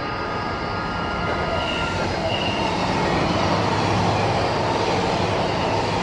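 E259 series Narita Express electric multiple unit passing close beneath, its wheels running on the rails in a steady rumbling wash that grows a little louder toward the middle. Thin high tones sound during the first two seconds.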